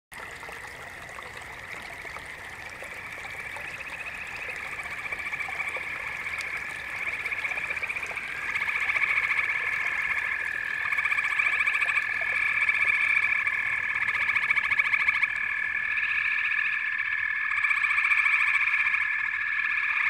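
A dense chorus of frogs calling: many rapid pulsing trills packed together at a high pitch, with one steady high tone running through them. It fades in and grows louder.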